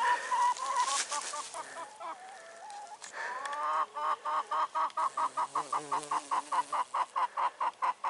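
Hens clucking: a rising call about three seconds in, then a quick, even run of clucks, about five a second, that cuts off suddenly at the end.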